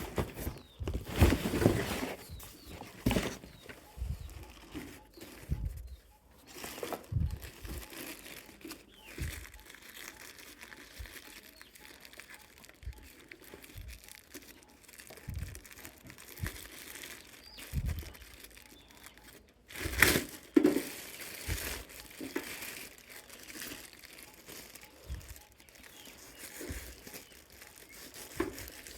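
Packaging being handled during an unboxing: irregular crinkling and rustling of wrapping, with scattered knocks. The loudest bursts come near the start and about two-thirds of the way through.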